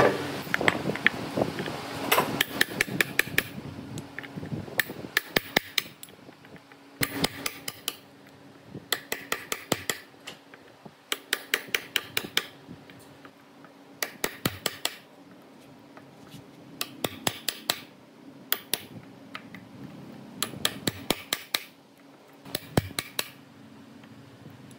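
Claw hammer striking old nails in weathered timber, in quick bursts of several light, clinking metal-on-metal blows with short pauses between bursts.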